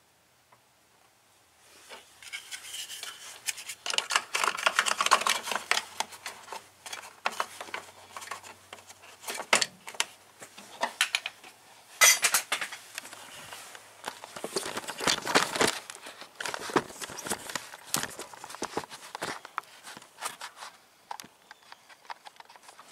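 Irregular metallic clinking and clattering of hand tools and parts being handled, starting about two seconds in and going on in quick, uneven clicks and clanks.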